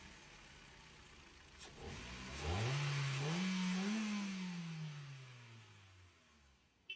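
Hyundai Accent 1.6 petrol engine idling, then revved up in steps about two and a half seconds in and let fall back to idle. The engine has a misfire put down to a faulty ignition coil.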